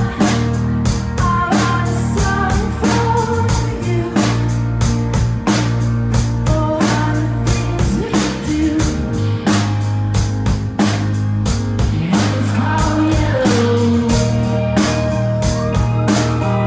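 Live rock band playing: drum kit beating a steady rhythm under electric and acoustic guitars and bass, with a man singing over it.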